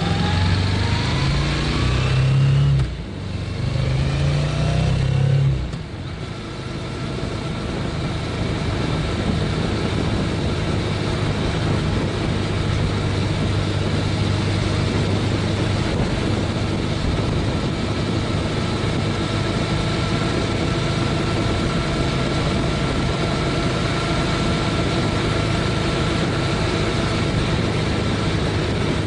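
Honda CTX700N's 670 cc parallel-twin engine pulling the motorcycle up through the gears: its note rises, drops briefly at two gear changes about three and six seconds in, then runs steadily at a cruise of about 33 mph. A steady rush of air and road noise lies under it.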